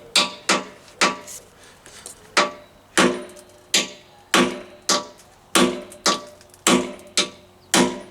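Hammer blows on a homemade bush-removal tool, driving a worn metalastic handlebar bush out of a Triumph T140 Bonneville's top yoke. There are about fourteen sharp metallic strikes, a little under two a second, each ringing briefly.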